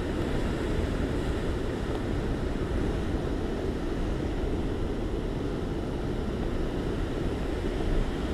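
Sea surf washing steadily, with wind on the microphone.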